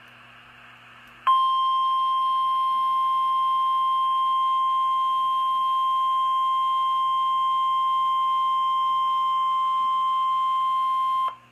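NOAA Weather Radio warning alarm tone, a single steady 1050 Hz beep. It starts about a second in over faint radio hiss, holds for about ten seconds and cuts off suddenly. It signals that a warning broadcast, here a tornado warning, is about to be read.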